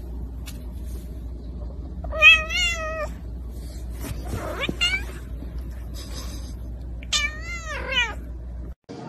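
Young tabby cat meowing three times: a long wavering meow about two seconds in, a short cry near the middle, and a falling meow near the end, over a low steady hum.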